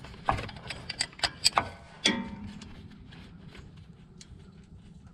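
Wrench clicking on a heavy-equipment starter's mounting bolt as it is backed out, with a ringing metal clink about two seconds in, then fainter ticking.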